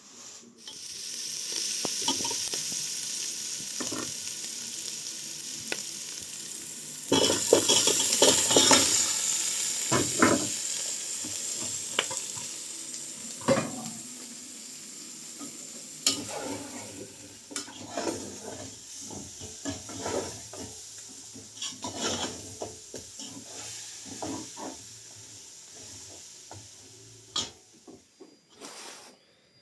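Food frying and sizzling in a pan while it is stirred with a utensil that scrapes and clicks against the pan. The sizzle surges loudest about seven seconds in, then gradually fades while the stirring goes on.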